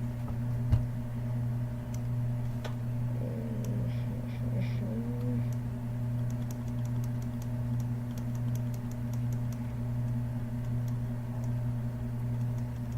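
Scattered light clicks and taps of a computer keyboard and mouse over a steady low electrical hum.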